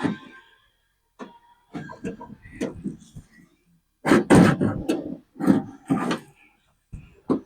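Irregular metallic clunks and rattles of the door latch linkage rods and parts being handled inside an open car door, in groups with short pauses between them.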